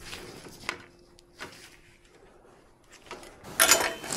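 Bicycle parts and hand tools being handled: a few light clicks, then from about three and a half seconds in a run of loud, sharp metallic clinks with a ringing tone as tool meets metal.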